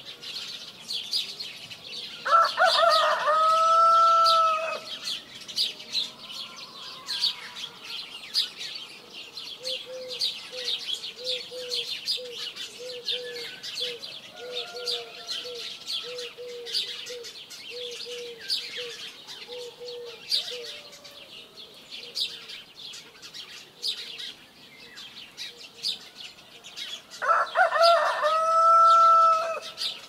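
Morning countryside birdsong: small birds chirping constantly, with a rooster crowing loudly twice, once a couple of seconds in and again near the end. Through the middle comes a run of short, low repeated calls.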